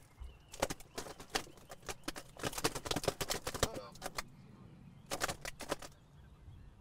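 Irregular clicking and rattling from a loaded weigh sling hanging on a digital hanging scale: dense for the first few seconds, a pause, then another burst around five seconds in. The catch is moving the load, so the reading wavers.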